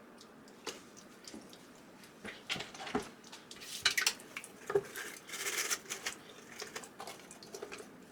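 Plastic humidifier parts being handled and scrubbed during cleaning: scattered light clicks and knocks, with a short hiss of scrubbing about five seconds in.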